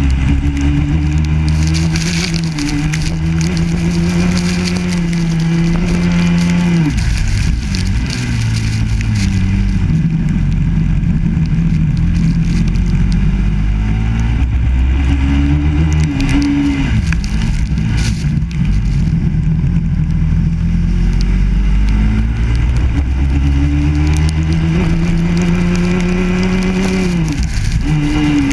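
Biland SA250 kart's 250 cc four-stroke engine racing flat out, its revs climbing slowly and then falling sharply three times as the throttle is lifted for corners. A steady hiss of tyre spray and rain from the wet track runs under it.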